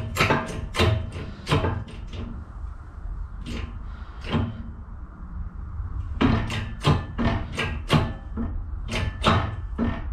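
Hydraulic shop press pressing a boss into a steel brake-column tube: a run of sharp clicks and knocks over a low hum. The knocks thin out in the middle and pick up again after about six seconds.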